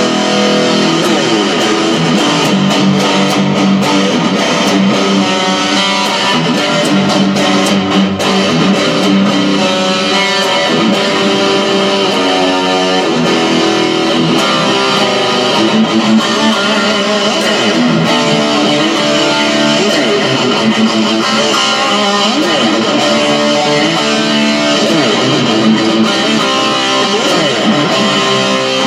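Godin Redline electric guitar with an active EMG 81 pickup played through a Marshall MG15 DFX amp's built-in distortion: continuous distorted metal riffs and lead lines with bent and wavering notes.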